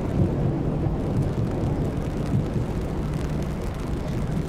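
Wind buffeting the microphone in a steady low rumble, over the noise of rain on a city street.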